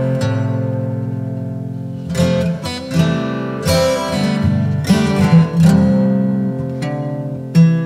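Background music of acoustic guitar strumming chords: one long chord fades out over the first two seconds, then a steady run of strums.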